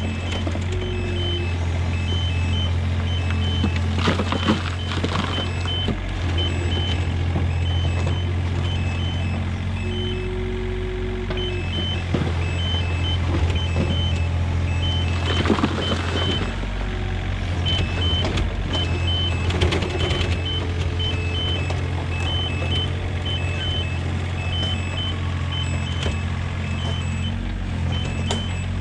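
IHI 30VX mini excavator's diesel engine running steadily under digging load, with short hydraulic whines at times and the bucket scraping and knocking through rocky soil a few times, loudest about four, fifteen and twenty seconds in. A high intermittent beeping sounds through it.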